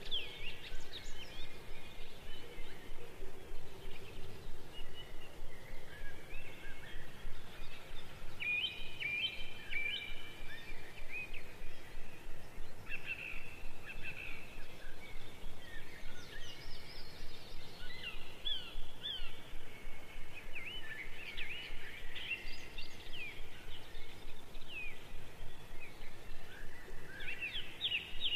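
Many small birds chirping and twittering, with quick rising and falling notes scattered throughout, over steady background noise.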